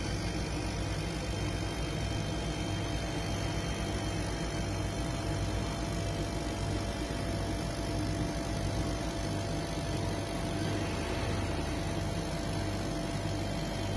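CO2 laser cutting machine running a cut: a steady mechanical hum and whir from its fans, air assist and gantry motors, with a low throb that pulses evenly.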